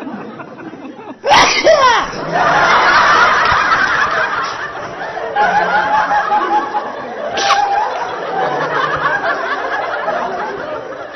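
A loud sneeze a little over a second in, followed by long, continuous laughter, with a second short, sharp burst partway through.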